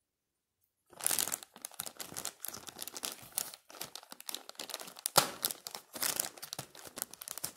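Plastic courier mailer crinkling and crackling as it is gripped and cut open with scissors, starting about a second in, with one sharp crack about five seconds in.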